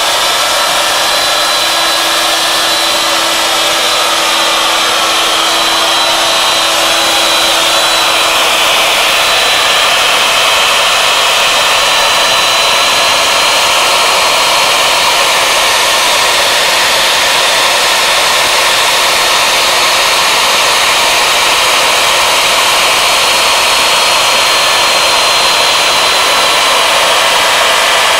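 Router spindle on a CNC lathe running steadily at high speed, its bit cutting into a wooden turning blank: a loud, even motor noise with a steady high whine.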